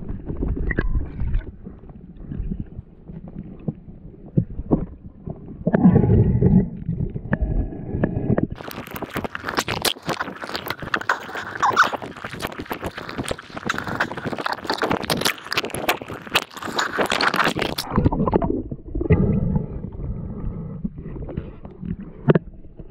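Underwater sound from a diver handling a fishing rod: muffled low rumbling and knocks of movement in the water. From about nine seconds in, a dense crackling hiss runs for roughly nine seconds, then stops.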